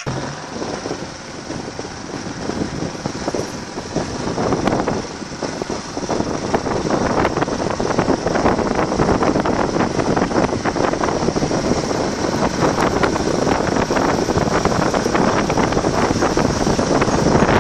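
Wind buffeting the microphone and road noise from a vehicle riding along a dirt road. The noise grows louder over the first several seconds, then holds steady.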